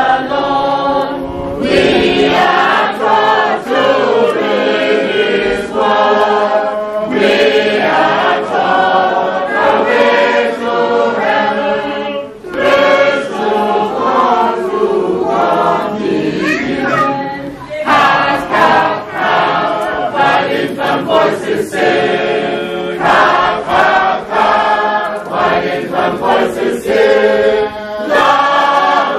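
A church choir singing a hymn together in phrases, with short breaks between lines.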